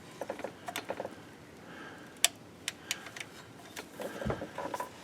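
A few scattered sharp metallic clicks and taps from a socket ratchet being handled and worked in short strokes on a starter mounting bolt.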